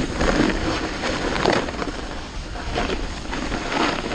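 Snowboard sliding and scraping over packed, tracked snow, in irregular surges of hiss.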